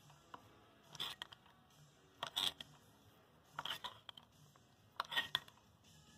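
Manual sheet-metal stretcher working an 18-gauge steel L-angle: the jaws clank faintly four times, about once every second and a half, each stroke gripping and stretching the flange.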